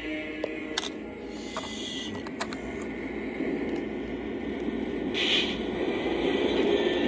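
O gauge model diesel locomotive in Santa Fe warbonnet paint running along the track: a steady rumble of its motors and wheels on the rails, growing gradually louder, with a few light clicks. In the first second a held tone from its horn sound trails off.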